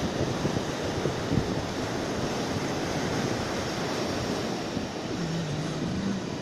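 Steady rush of sea surf and wind on the microphone.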